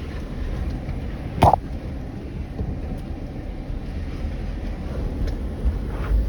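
Off-road vehicle driving slowly over rough desert terrain: a steady low rumble of engine and tyres, with one sharp knock about a second and a half in.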